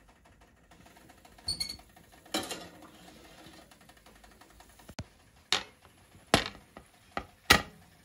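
A series of sharp knocks and clinks of kitchenware being handled and set down on a table. One clink about a second and a half in has a brief metallic ring, and the knocks grow louder and closer together toward the end.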